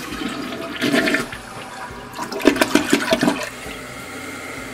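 Dual-flush toilet flushed on its small half-flush button: water rushing into the bowl, gurgling loudest between about two and three and a half seconds in, then settling to a steadier, quieter rush of water.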